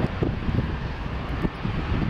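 Jet engines of a Boeing 747 on low final approach, a steady low rumble as the airliner descends toward the listener.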